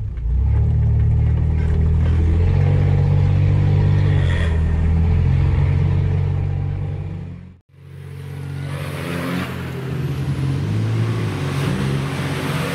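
A 4x4's engine pulling steadily at low revs while driving off-road, its pitch rising and falling a little. About eight seconds in the sound cuts abruptly to another stretch of engine with more noise over it, the revs wavering up and down.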